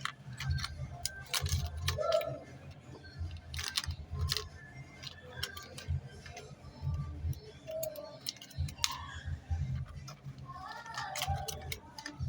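Irregular light clicks and taps, as of small hardware being handled on a workbench, over a low pulsing hum.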